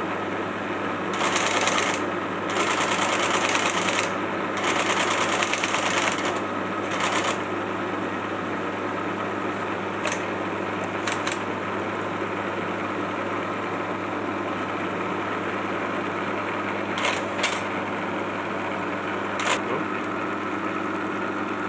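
Steady hum of the running 1958 LGP-30 valve computer, broken in the first seven seconds by four bursts of rapid typewriter-like mechanical chatter. Later come a few short, sharp clicks as console buttons are pressed.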